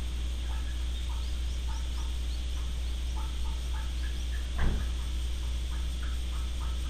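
Birds calling in short, repeated notes over a steady low hum, with one sharp knock a little past the middle.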